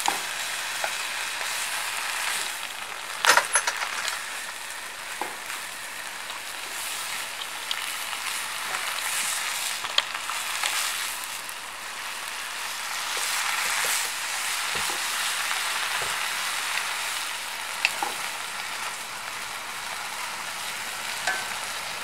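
Pumpkin shoots and long beans sizzling in a hot wok as they are tossed with two wooden spatulas, a steady hiss with scattered clicks and knocks of the spatulas against the pan, the loudest cluster about three seconds in.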